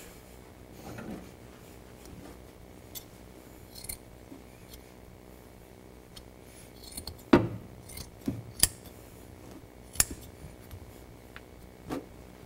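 Scissors cutting through jute carpet padding, with a few sharp snips and clicks of the blades. The loudest snip comes a little past halfway. A soft rustle of the padding being handled is heard about a second in.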